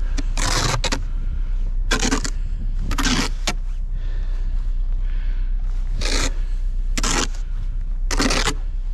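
Snow shovel scraping through snow in about eight short separate strokes at uneven intervals, with a pause of a couple of seconds in the middle, over a steady low rumble.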